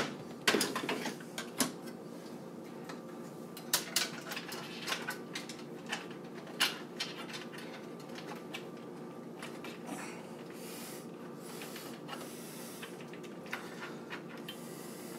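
Fan cables and plastic parts being handled and pushed into place inside a PC case: a run of sharp clicks and rustles, thickest in the first half and sparser later, over a faint steady hum.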